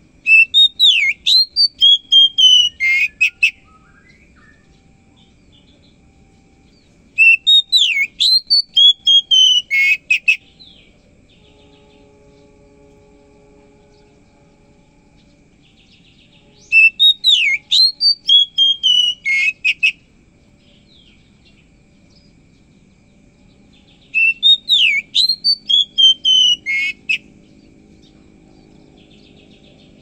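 Oriental magpie-robin singing: four loud whistled song phrases of about three seconds each, several seconds apart. Each phrase swoops up and down and ends in a quick run of notes.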